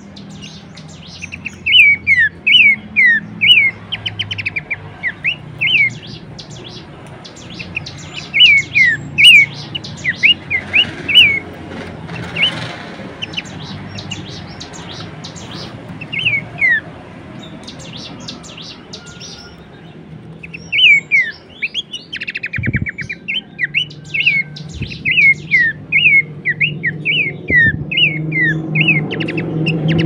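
Pelanduk semak (Horsfield's babbler) singing: runs of short, clear, falling whistled notes, with a quick rattling trill about two-thirds of the way through. A single low thump comes soon after the trill.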